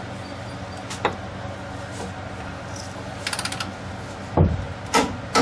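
A ratcheting torque wrench being worked on a ball joint nut: a short, quick run of ratchet clicks about three seconds in, then a couple of sharp metal knocks near the end, over a steady low hum.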